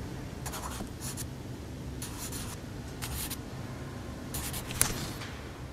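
Graphite pencil writing numbers on paper: a series of short scratching strokes, with a sharp tick of the pencil point near the end.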